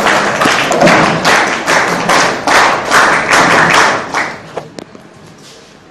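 An audience clapping together in a steady rhythm, about two to three claps a second, stopping a little over four seconds in, followed by a couple of faint knocks.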